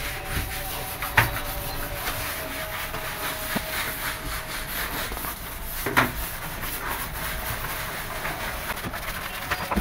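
Cloth wiping and rubbing along the shelf inside a kitchen cabinet, with two sharp knocks, one about a second in and one about six seconds in.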